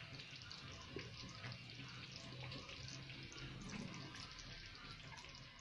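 Thick mole simmering in a clay cazuela, the sauce bubbling with many small pops and a soft hiss over a low steady hum.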